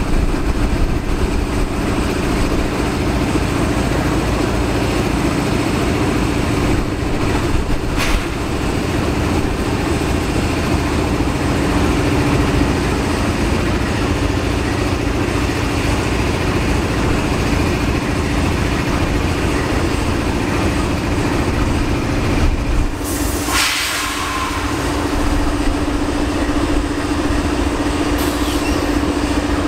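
GE AC4400CW and ES44AC diesel locomotives idling after an engine restart: a steady engine rumble with a constant hum. A short burst of hissing air comes about three-quarters of the way through.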